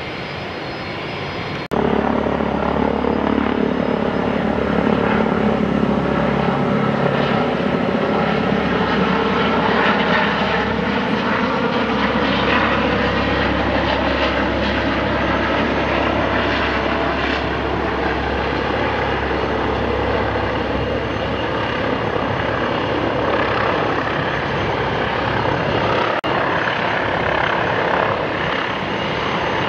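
Helicopter in low flight, its turbine engines and rotor running steadily with a slowly falling pitch as it passes and comes in toward the airport. An abrupt cut about two seconds in ends a brief stretch of jet engine noise, and another cut comes near the end.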